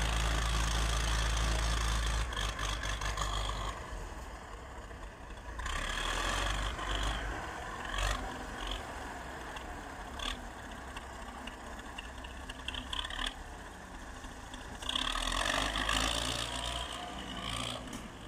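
Wheel loader's diesel engine running while it works snow with its front bucket, loudest in the first two seconds and then rising and falling. A few sharp clanks and rattles from the bucket and loader arms come through, the clearest about eight and ten seconds in.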